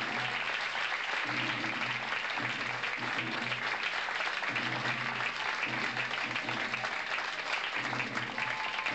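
Audience applauding steadily, with a man's voice speaking underneath.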